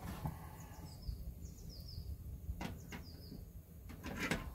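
A few sharp metal clicks and knocks as a rotisserie spit is set into the holder of a stainless-steel Beefer grill. Small birds chirp faintly in the first half.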